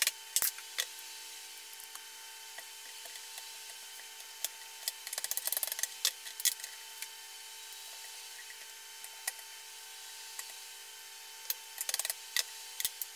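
Light metal clicks and taps as the wrist pin of a 1986 Toyota pickup's piston is driven out of its connecting rod clamped in a vise, tapped through with a socket and a plastic mallet. A cluster of quick taps comes about five seconds in and another near the end, over a steady hum.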